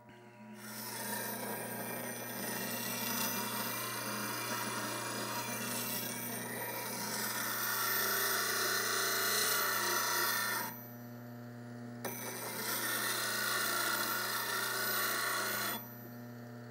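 Rikon low-speed bench grinder running with a steady hum while a steel bowl gouge in a sharpening jig is swung across its CBN wheel, giving a gritty grinding hiss. The grinding pauses for just over a second about ten seconds in, then stops about three seconds before the end, leaving the motor humming on its own.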